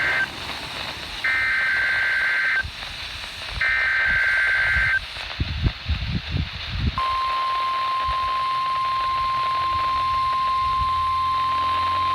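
NOAA Weather Radio Emergency Alert System test tones: the end of one SAME data burst and two more harsh warbling bursts about a second and a half long each. A few low thumps follow, then about seven seconds in the steady 1050 Hz warning alarm tone begins and holds.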